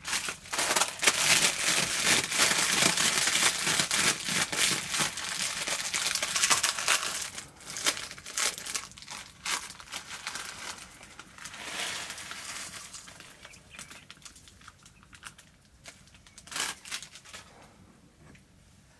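Plastic instant-noodle wrapper crinkling and crumpling as it is handled by hand, dense for the first eight seconds or so, again briefly a few seconds later, then a few scattered rustles and clicks.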